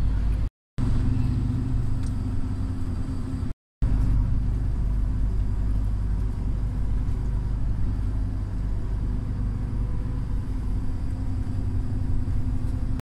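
Steady low rumble of a sleeper bus's engine and road noise, heard from inside the moving cabin. It cuts out briefly twice, once near the start and once a few seconds in.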